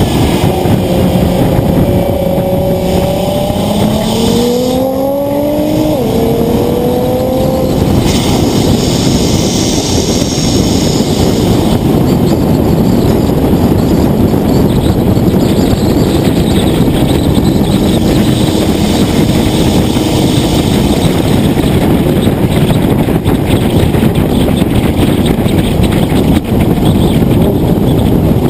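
Nissan GT-R R35's twin-turbo V6 pulling up through the revs, shifting up about six seconds in and pulling again. After that the engine fades under loud, steady road and wind noise at speed.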